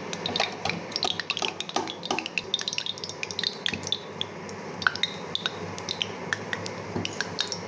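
Hot cooking oil in a karai crackling and popping: irregular small pops and ticks over a faint sizzle. The oil is heated and ready for frying.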